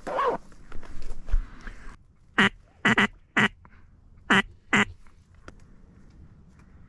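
Duck quacking: five short, loud quacks in two runs, three and then two, each about half a second apart. A low thump comes first.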